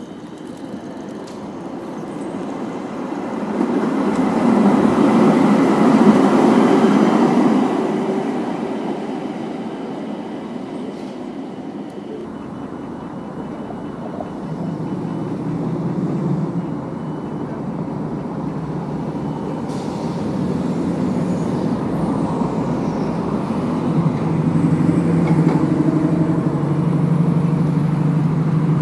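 A city tram passing close by on street track, its rumble swelling and peaking about five to seven seconds in and then fading. Then quieter steady street traffic noise, with a low steady hum building near the end.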